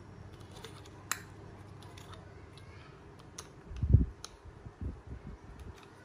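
Handling of a Zippo lighter as it is slid out of its plastic box insert: light clicks and taps of the metal case against the plastic, with a sharp click about a second in. A dull thump comes near the middle, followed by a few softer knocks.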